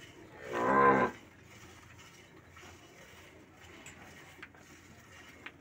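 A cow gives one short, low moo, lasting about half a second, just after the start.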